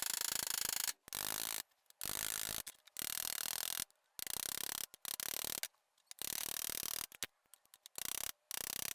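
Repeated short rasping, ratcheting strokes of hand work on the steel monkey wrench, each about half a second to a second long, stopping and starting abruptly.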